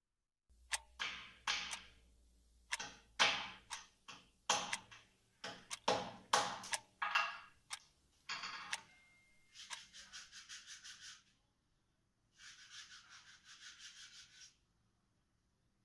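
Workshop sounds: a run of about twenty irregular sharp knocks with short ringing tails, then two spells of fast rhythmic scraping strokes, about six a second, each lasting a second and a half to two seconds.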